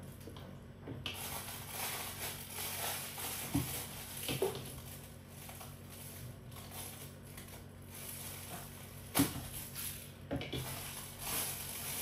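Rustling and crinkling of the inner wrapping around a stack of Kalita Wave 185 paper filters as it is cut open and handled, with a few sharp knocks, the loudest about nine seconds in.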